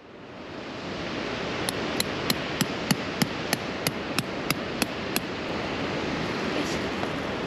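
A hand tool hammering at ground level among gravel and rocks, about a dozen sharp strikes, roughly three a second, over a steady rushing background noise.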